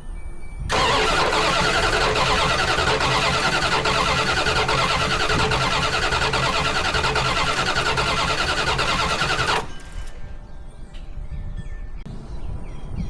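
A 1990 Dodge Ram 150's starter cranking its throttle-body-injected engine for about nine seconds with an even, rapid pulse, then stopping abruptly without the engine catching: the truck's no-start fault.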